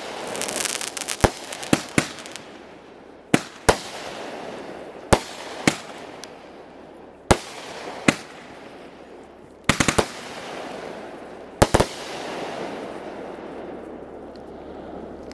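Fireworks going off: sharp bangs at uneven intervals, some in quick doubles and triples, with a crackling fizz trailing after several of them.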